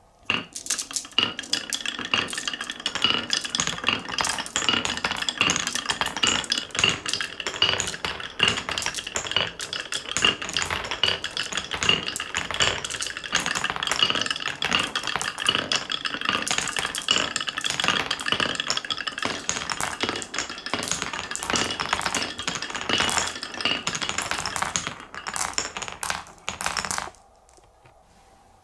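Many glass marbles rolling and clattering down a wooden Cuboro marble run: a dense, continuous rattle of clicks as they knock against the wooden blocks and tracks and against each other. The clatter stops suddenly near the end.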